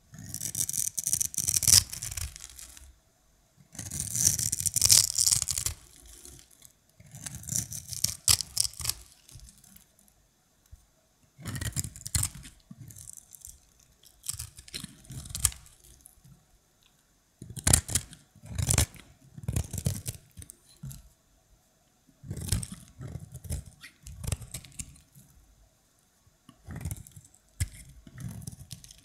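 Dry, starch-coated soap crunching and crumbling as it is crushed, in a string of bursts each a second or two long with short pauses between. The loudest bursts come in the first few seconds.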